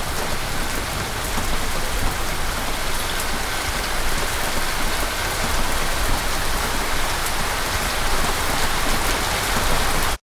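Steady rain falling, with faint ticks of individual drops. It cuts off suddenly near the end.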